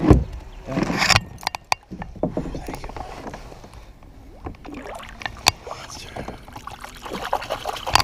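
Knocks, clicks and thumps of handling on a plastic fishing kayak, with water splashing as a largemouth bass is lowered over the side and released. The sharp knocks come at irregular moments, one loud thump right at the start.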